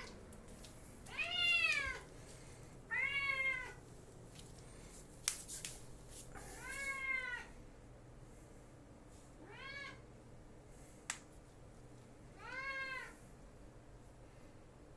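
Domestic cat meowing five times a few seconds apart, each meow rising then falling in pitch. A sharp tap sounds about five seconds in.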